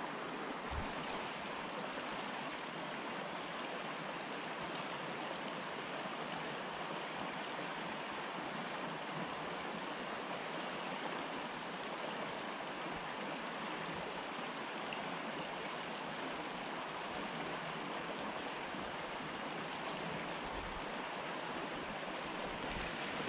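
Steady rush of flowing creek water, an even hiss without breaks.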